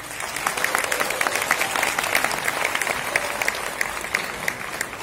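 Audience applauding: many people clapping in a dense, steady patter that eases slightly near the end.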